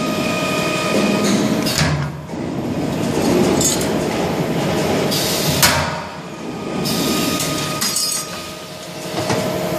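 Pneumatic corner fixing machine working sheet-metal duct corners: short blasts of air hiss and three sharp metal clanks a few seconds apart, over steady workshop noise.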